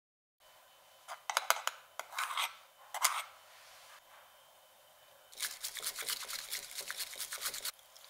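A few knocks and short scrapes of utensils. Then, from about five seconds in, a rapid scraping run of strokes for about two and a half seconds: matcha being whisked with a bamboo whisk in a ceramic bowl.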